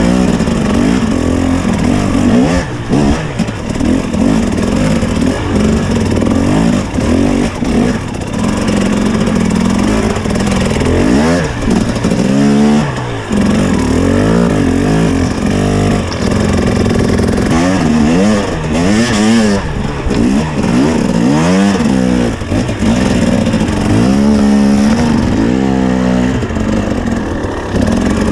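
KTM two-stroke enduro motorcycle engine running under the rider, revved up and down over and over in short bursts of throttle, its pitch rising and falling several times.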